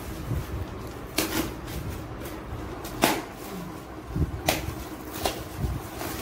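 Plastic film and cardboard packaging being handled on a mirror: four short sharp crackles or knocks, the loudest about three seconds in, with soft low thuds between them.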